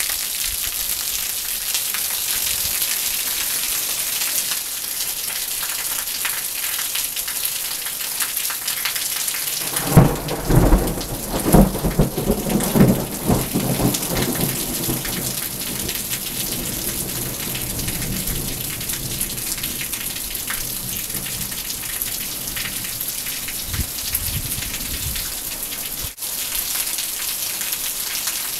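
Steady rain from a monsoon thunderstorm. Thunder breaks suddenly about ten seconds in and rumbles on in several loud peaks for a few seconds before fading.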